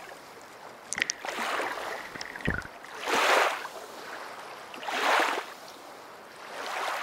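Wader-clad feet sloshing through shallow muddy pond water, one splashy swell with each stride about every two seconds, with a small knock about a second in.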